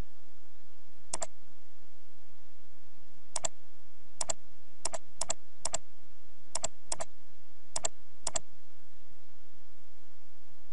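Computer mouse button clicked about ten times at irregular intervals, each click a quick double tick.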